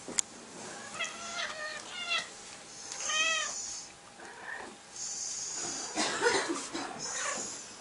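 A domestic cat meowing a few short times, the loudest call about three seconds in, with a dog's snuffling breaths in between.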